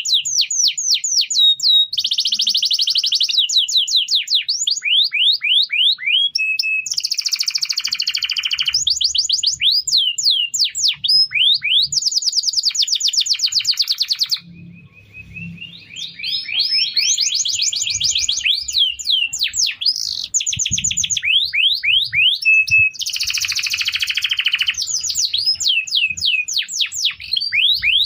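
Domestic canary singing: long, rapid trills of fast-repeated sweeping notes, with a brief pause about halfway through.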